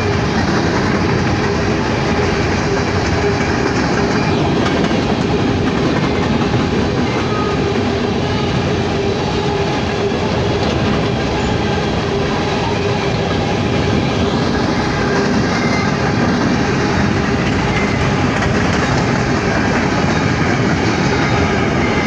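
Empty steel coal gondolas of a freight train rolling past close by. Their wheels on the rails make a steady, loud noise with a constant tone running through it.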